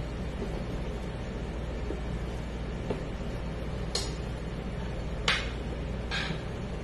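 A few short rustles as thin samosa pastry sheets are handled: one about four seconds in, a louder one a second later, and another shortly after. Under them runs a steady low hum.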